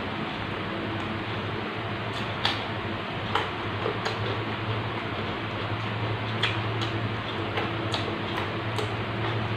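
Eating sounds of raw vegetables and sambal being eaten by hand: short, crisp clicks and crunches at irregular intervals from about two seconds in. A steady low hum and hiss run underneath.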